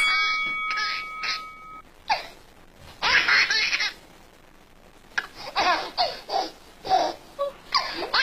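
A baby laughing in repeated bursts of belly laughs and giggles, with short pauses between them. A steady electronic tone with several pitches sounds under the laughter in the first couple of seconds.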